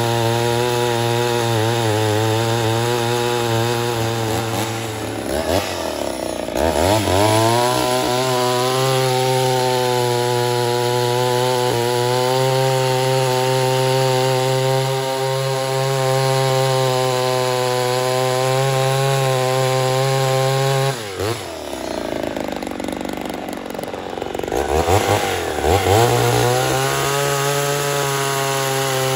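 Ported Poulan 245a two-stroke chainsaw running at high revs while cutting wood. Twice, about five seconds in and again about twenty-one seconds in, the engine pitch drops and then climbs back up to speed.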